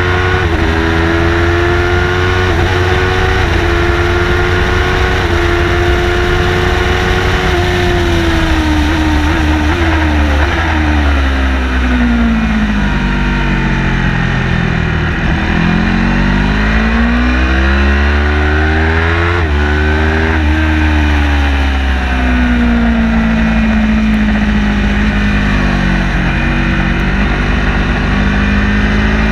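Car engine at speed on a racetrack: it holds high revs for several seconds, winds down steadily for a long stretch, climbs again, drops sharply once as if shifting gear, then settles at a steady speed, all over a constant deep road and wind rumble.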